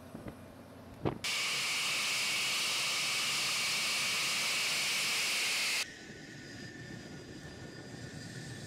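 A single knock, then the loud steady hissing roar of a MiG-31's jet engines that starts and stops abruptly. After that comes a quieter engine whine with thin, steady high tones as the MiG-31 taxis.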